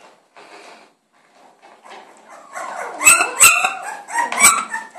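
Newborn puppy whimpering, thin wavering whines that come mostly in the second half, with three sharp clicks among them.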